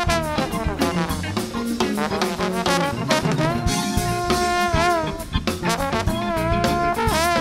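Live funk-jazz band recording: a horn holds long notes, shaking and bending them about halfway through and again near the end, over a drum kit.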